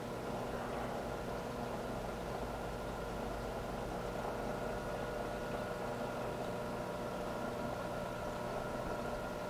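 Steady hum of aquarium hang-on-back filters running: a low drone with several constant tones over it.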